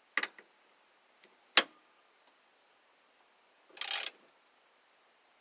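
A few sharp clicks and knocks of a hand tool on metal, the loudest about a second and a half in, and a short rasp near four seconds, as the steering wheel hub adapter is tightened down.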